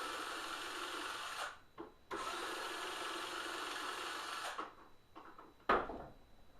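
Power drill-driver running in two steady bursts of about two and a half seconds each, backing screws out of a Hoover SteamVac carpet cleaner's plastic housing, followed by a single sharp knock near the end.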